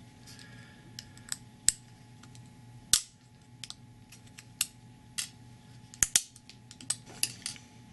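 Irregular sharp clicks and taps of small metal parts as screws and standoffs are pressed out of a Kershaw Blur folding knife's frame and its front plate is worked loose, with the loudest clicks about three seconds in and a close pair about six seconds in.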